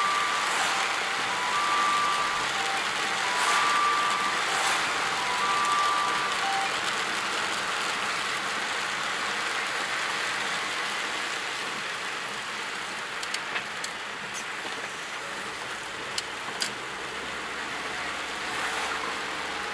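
Steady hiss of rain and wet tyres on the road, heard inside a moving car's cabin. For the first several seconds a repeating pattern of short electronic beeps stepping down in pitch sounds over it, and a few sharp clicks come later.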